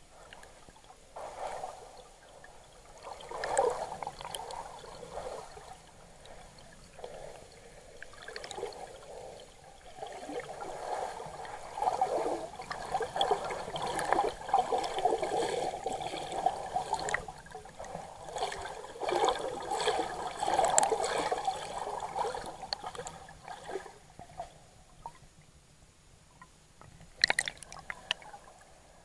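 Water sloshing and gurgling around an action camera held just under the surface, heard muffled through its waterproof case. The sound surges unevenly, strongest through the middle, dies down near the end, and has a sharp click shortly before the end.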